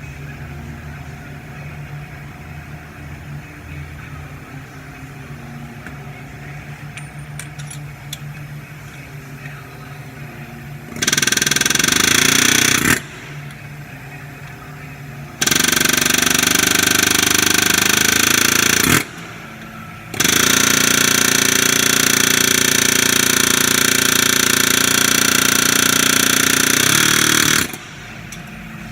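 Snap-on pneumatic air hammer with a blunt tip rattling against a caliper bolt seized with Loctite, vibrating the threadlocker loose so the bolt can be broken free without heat. It runs in three bursts: a short one about eleven seconds in, a longer one a few seconds later, and a long run of about seven seconds that stops near the end.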